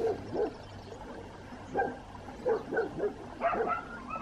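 A dog barking and yipping at irregular intervals, in short calls.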